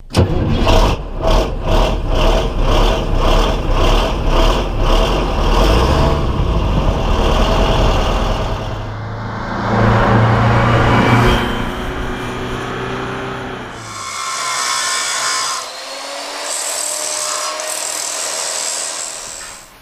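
Power-tool demolition work on metal: a run of rapid, evenly spaced knocks, about two a second, for the first six seconds, then a power tool running with a steady grinding noise.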